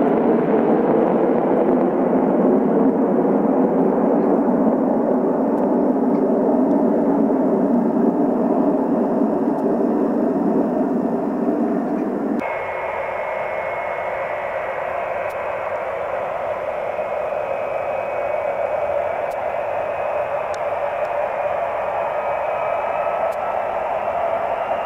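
A Boeing 707's jet engines running at climb power as it departs, a steady deep rumble. About halfway through this cuts off abruptly into jet engines on the ground: a steady whine with high tones, rising a little near the end.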